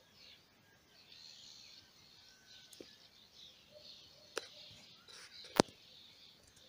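Faint birds chirping in the background, broken by two sharp clicks, the louder one more than halfway through.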